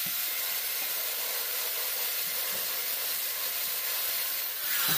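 Electric angle grinder running steadily with a thin cut-off disc, cutting through red PVC pipe: a continuous high, hissing grind.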